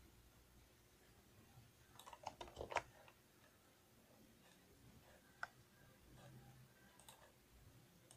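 A quick run of computer keyboard and mouse clicks about two seconds in, then a single click a few seconds later and a few faint ones near the end, over a faint room hush.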